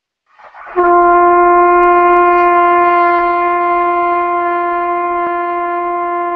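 Trumpet sustaining a long tone as a no-buzz warm-up: a short rush of air, then a steady mid-range note sets in just under a second in and is held unbroken, easing slightly in level.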